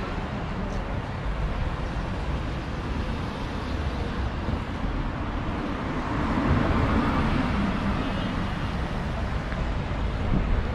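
Street ambience of town traffic: a steady rumble that grows louder for a couple of seconds past the middle.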